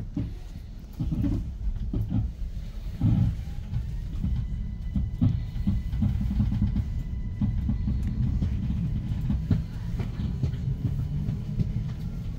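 Interior running noise of an ÖBB Cityjet (Siemens Desiro ML) electric multiple unit under way: a steady low rumble with scattered knocks from the wheels over the track, and a faint thin whine for a few seconds in the middle.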